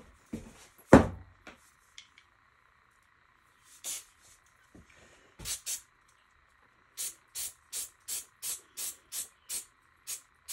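A loud thump about a second in, then an aerosol spray-paint can hissing in short spurts: a few scattered ones, then a quick regular run of about three a second near the end.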